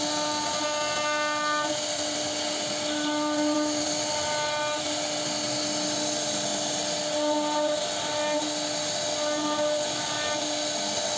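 CNC router spindle whining at a steady pitch as its bit carves grooves into a wooden door panel, the whine growing stronger and fainter by turns as the cutter bites, over a steady hiss of cutting.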